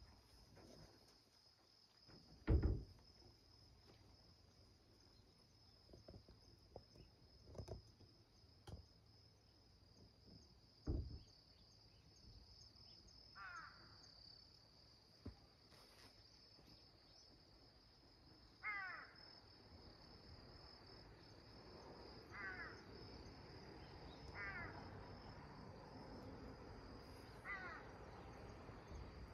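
Faint, steady, high-pitched insect drone, with a short burst of quick repeated bird chirps heard five times in the second half. A few soft thumps come earlier; the loudest is about two and a half seconds in.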